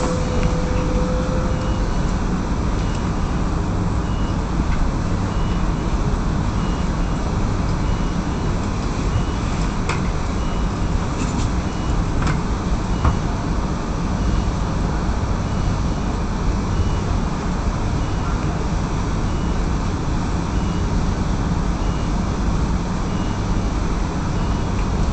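Electric suburban train standing at a station platform: the steady low hum and rumble of the carriage's equipment heard from inside, with a faint high pip repeating about once a second.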